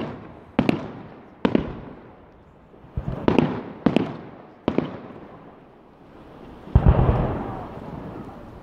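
Aerial firework shells bursting in the sky: a run of about seven sharp bangs in the first five seconds, then a deeper, longer boom near seven seconds that rolls away slowly.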